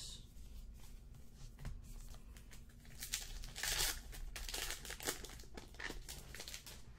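Wrapper of a Topps Archives baseball card pack crinkling and tearing as it is opened by hand, in a run of short crackles that are loudest about three to four seconds in.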